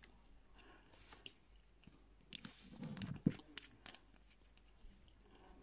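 Faint chewing and wet mouth clicks of someone eating soft sandwich bread, heaviest between about two and four seconds in.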